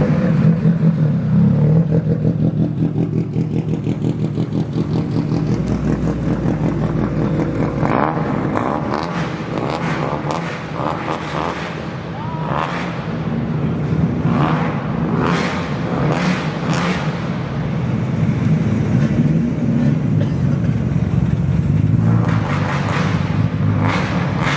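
Modified car's engine running at low revs with a steady, lumpy throb as the car moves slowly, while short clattering sounds and voices come and go in the middle and near the end.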